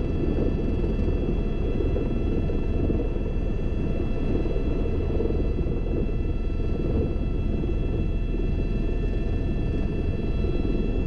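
Helicopter heard from inside the cabin: a steady deep rumble from the rotor and engine, with a steady high whine over it.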